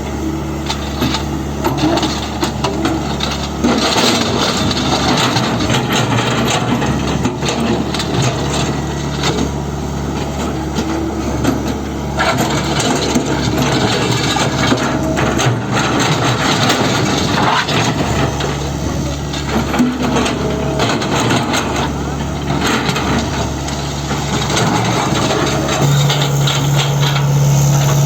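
Tata Hitachi Zaxis 120 excavator's diesel engine running steadily, with many knocks and clicks over it. The engine note gets louder near the end.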